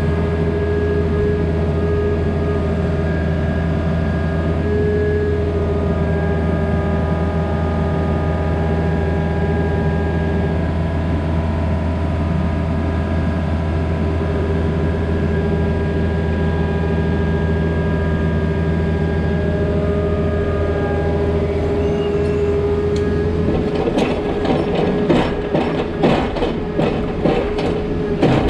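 Diesel engine of a Takeuchi TB260 mini excavator running steadily. A few seconds before the end its note changes and a quick run of clanks and knocks follows.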